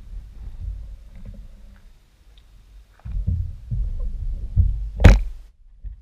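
Handling noise on the camera: muffled bumps and rumbles, then one loud sharp knock about five seconds in.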